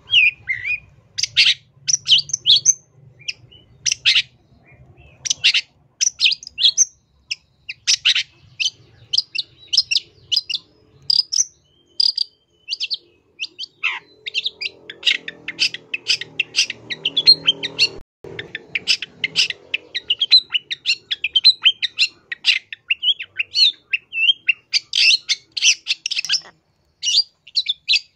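Long-tailed shrike (cendet) singing a fast, varied chatter of short high notes in quick runs with brief pauses, a song full of phrases mimicked from other birds.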